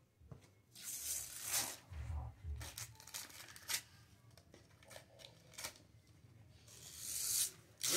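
Christmas wrapping paper being torn off a gift box by hand, in several short rips with crinkling and small clicks between, the longest rip near the end.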